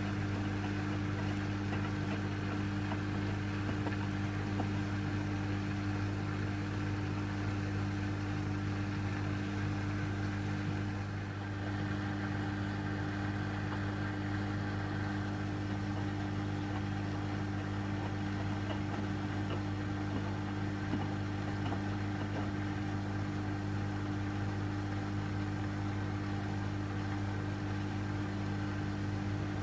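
Beko washing machine running its cottons 60°C wash, a steady low hum with a slight dip in level about eleven seconds in.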